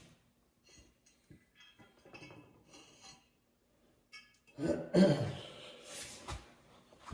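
Light metal clinks of hand tools on bolts during tightening, followed about four and a half seconds in by a louder cluster of knocks and a heavy breath or grunt of effort.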